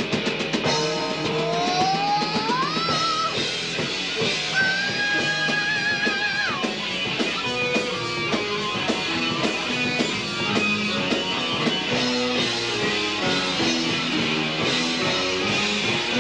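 Rock band playing live, an instrumental passage with drum kit, electric guitar and keyboards. A lead line slides up in pitch, holds one long high note that drops away about six seconds in, then runs through quick notes.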